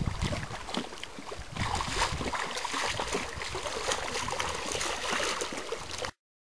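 Lake water splashing and sloshing around a swimmer's strokes, in an irregular run of small splashes that cuts off suddenly near the end.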